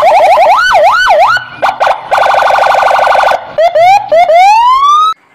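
Police car's electronic siren cycling through its tones: a fast yelp, a few slow rising-and-falling wails, a rapid two-tone warble for about a second, then a run of rising whoops, before it cuts off suddenly about five seconds in.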